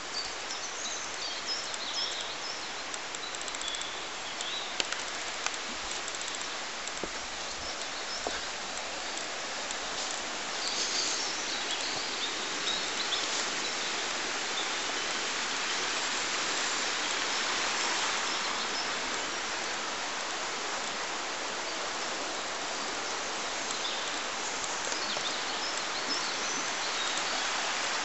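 Shallow woodland river running over stones, a steady rushing that grows a little louder about ten seconds in, with birds chirping now and then over it.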